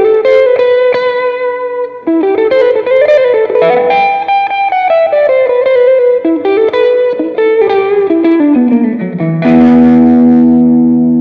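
Fender Stratocaster Elite electric guitar playing a single-note lead melody with string bends and slides. About nine seconds in, a chord is struck and left to ring, slowly fading.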